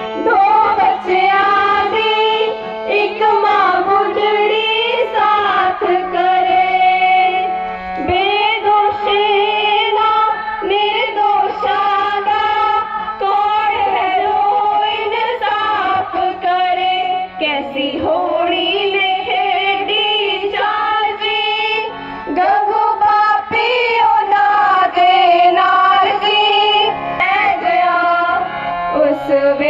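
A group of girls singing a Punjabi devotional song, accompanied by a harmonium holding steady notes beneath the melody.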